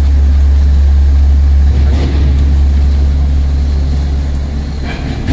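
Diesel engine of a heavily loaded flatbed truck running at low speed as it pulls slowly away, a steady low rumble that eases off a little about two seconds in.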